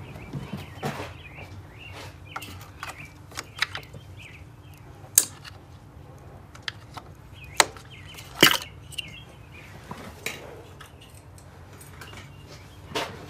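Scattered clicks and knocks of coil packs being worked loose by hand from the engine of a 2007 Volkswagen Eos, with a few sharper clacks about five, seven and a half and eight and a half seconds in.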